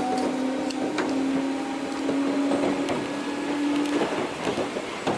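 Inside a Gakunan Railway electric train running under power: a steady hum from the chopper-controlled traction equipment, rising slightly in pitch, over the rushing of the car rolling along. The hum cuts off about four seconds in, leaving only the rolling noise.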